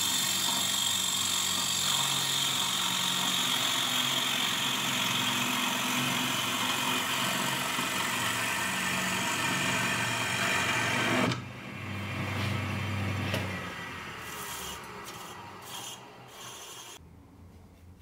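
Wood lathe spinning a wooden bracelet blank while its inside is scraped and sanded: a steady hissing rasp over the lathe's low hum. About eleven seconds in the rasp stops abruptly; the hum runs on briefly, then the sound fades away with a few faint clicks.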